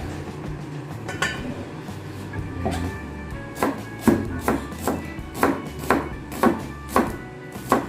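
Knife chopping on a cutting board: a run of about nine sharp strikes, roughly two a second, starting about three and a half seconds in, over background music.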